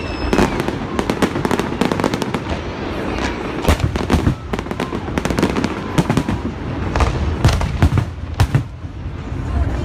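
Aerial firework shells bursting one after another, a dense run of booms and sharp reports, several a second, over a continuous low rumble.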